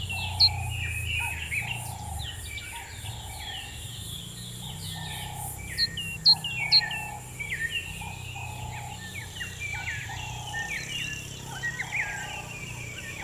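Several birds chirping and singing together in quick, overlapping sharp notes, over a lower call repeated at a steady pace and a faint low rumble.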